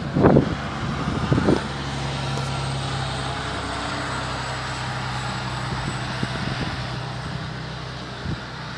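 Road traffic: a vehicle engine's steady low hum, easing off slowly near the end, with two knocks about a second apart at the start.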